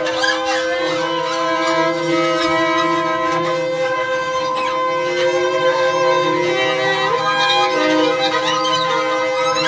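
Live experimental improvised music: several long held tones layered over one another, in the manner of bowed strings. A lower drone comes in about a second in, and one pitch bends up and back down around seven seconds in.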